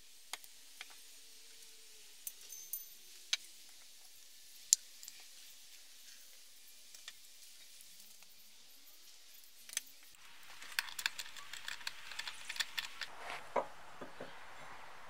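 Small metal clicks and clinks of hand work with metal parts: a circlip being worked with circlip pliers on the shaft of a trimmer engine's aluminium cover. After about ten seconds the clinks come closer together as cut steel plates are handled on a wooden bench.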